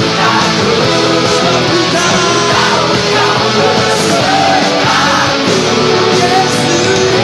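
Lead guitar playing a song melody over a full rock-style band backing track, loud and continuous, with a few bending notes midway.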